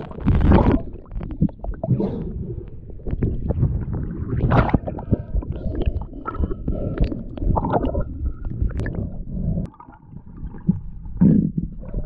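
Muffled water rumbling and gurgling with irregular knocks and clicks, heard through a waterproof camera housing as a spearfishing diver moves underwater and breaks the surface.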